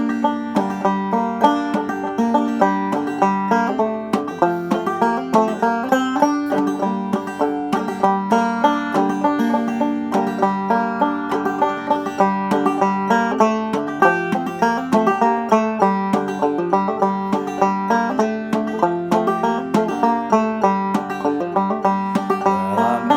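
Banjo in G minor tuning playing an old-time tune solo, a steady, even run of plucked notes over a repeating low-string pattern.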